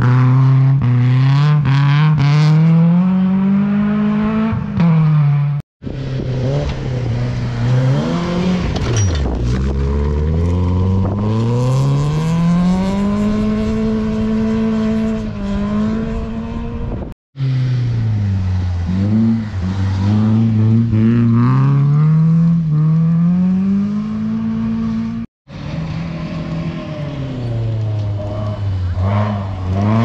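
Rally car engines revving hard through a gravel stage, the pitch climbing and falling back again and again with gear changes and lifts for the corners. The sound cuts out briefly three times as one car's pass gives way to the next.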